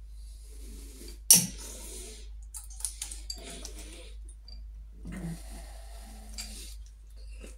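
Metal parts clinking and scraping as a Norton Commando's aluminium cylinder head is worked down over the barrels and pushrods by hand. There is one sharp, loud knock about a second in, and intermittent scraping and rustling after it.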